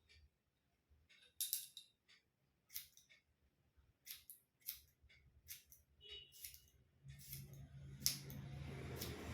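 Hairdressing scissors snipping hair: a series of separate crisp snips, roughly one or two a second. Over the last two seconds a steady hiss with a low hum rises underneath.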